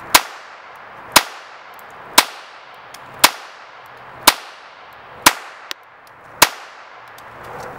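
CZ Model 45 .25 ACP pocket pistol firing seven shots at a slow, even pace, about one shot a second, each sharp crack followed by a short echo that trails off.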